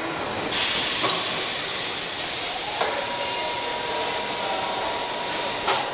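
Car factory machinery running: a steady hiss broken by three sharp clanks, about one, three and five and a half seconds in, with a steady tone joining at the second clank.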